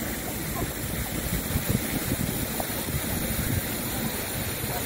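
Steady outdoor rushing noise of a city park, an even hiss, with faint scattered sounds of passers-by.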